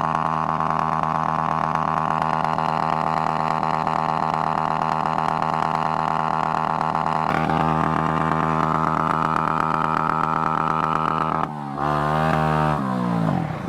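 Motorcycle engine running at a steady speed on the road, its note shifting about seven seconds in; near the end the revs drop and waver as it slows.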